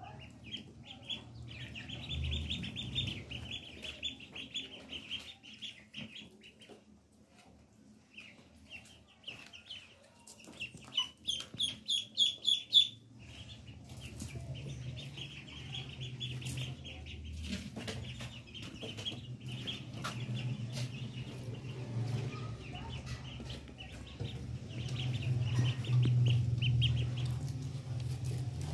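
Ducklings peeping in quick runs of high-pitched calls, loudest and most rapid about eleven to thirteen seconds in, with a brief lull before that. From about halfway a low steady hum runs underneath.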